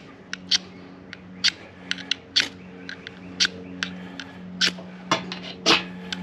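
Steel striker scraped down a ferrocerium rod again and again, a dozen or more short, sharp rasping strikes at uneven intervals, the longest and loudest near the end. These are attempts to spark a paraffin-soaked cotton tinder ball alight. A steady low hum runs underneath.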